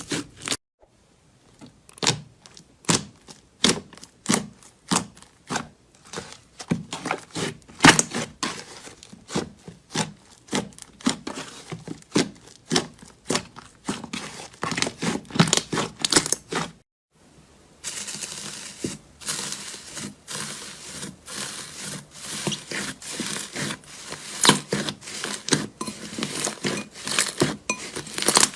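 Slime being squished and pressed by hand, giving dense wet pops and crackles. About two-thirds of the way through it breaks off briefly and resumes as a thicker, faster crackling.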